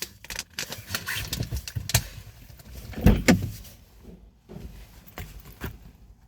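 A string of sharp clicks and knocks, with two heavy low thumps about three seconds in.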